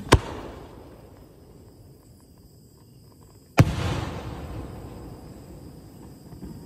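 A 5-inch aerial display shell: a sharp bang as it is fired from its mortar, then, about three and a half seconds later, a loud boom as it bursts overhead. Each bang is followed by a rumble that fades away.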